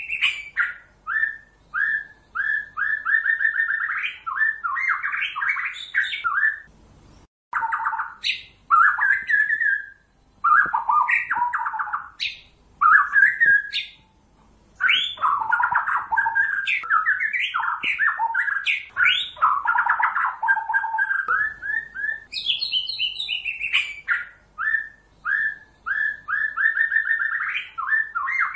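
White-rumped shama (murai batu) in full, continuous song: runs of rapidly repeated notes, whistled slurs and quick trills. The song breaks off in short pauses every few seconds.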